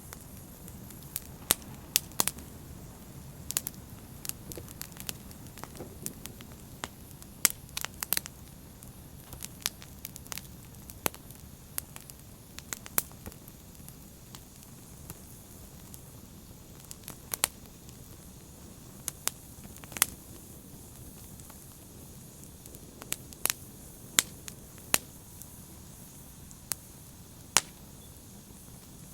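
Open fire crackling: irregular sharp pops and snaps, several a second at times, over a steady low rush of burning flames.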